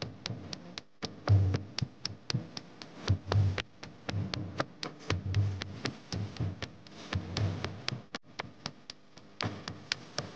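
Rhythmic music: sharp clicks two to three times a second over low, pulsing beats.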